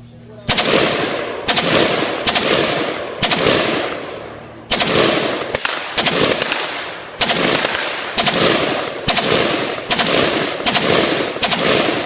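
AKS-74U "Krink" short-barrelled 5.45×39 mm carbine firing a string of loud shots, about one or two a second with some in quick pairs, each shot followed by a long echo that fades away.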